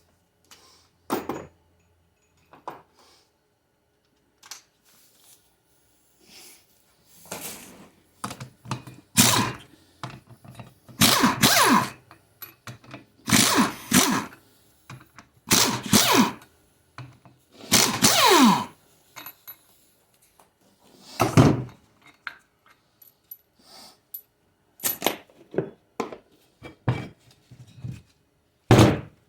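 Hand tools and metal transmission parts clanking, knocking and scraping on a workbench as a 4L60E's front pump is removed and opened, a run of irregular metallic knocks, some of them ringing, one with a ring that falls in pitch about two-thirds of the way through.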